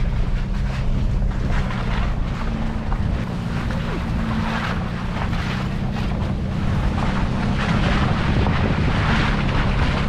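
Wind buffeting the microphone over the steady low drone of a vehicle engine, as heard riding in the open back of a moving truck.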